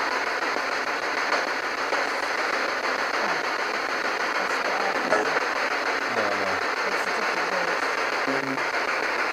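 A steady, even hiss runs throughout. Between about five and nine seconds in come a few faint, short low voice-like sounds, one of which is captioned as a voice answering "no".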